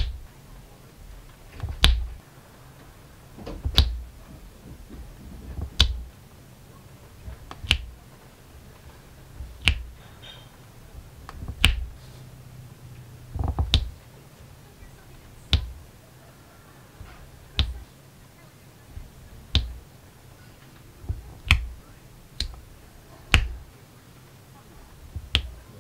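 Resin diamond drills pressed one at a time onto a sticky diamond-painting canvas with a drill pen: a sharp click with a soft thump about every two seconds, coming a little faster near the end.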